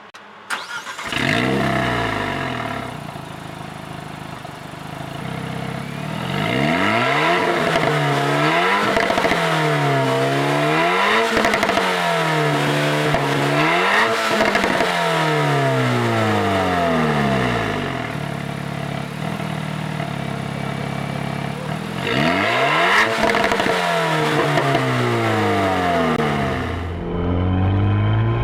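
Alpine A110's 1.8-litre turbocharged four-cylinder engine starting up about a second in, then blipped repeatedly through its sport exhaust, each rev rising and falling, with pops and crackles as the throttle is released. There is a steadier idle stretch midway, and near the end the car is heard under way on the road.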